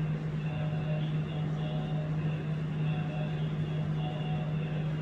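A steady low machine hum over a faint hiss, with fainter higher tones that come and go.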